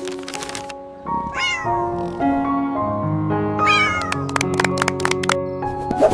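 Cat meowing twice over light background music, once about a second in and again near four seconds, each call falling in pitch. A run of short sharp clicks follows the second meow.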